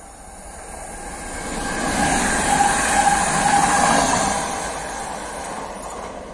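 Koleje Dolnośląskie electric multiple unit passing close by. The rumble of its wheels on the rails rises, peaks about two to four seconds in with a steady whine, and then fades as it goes away.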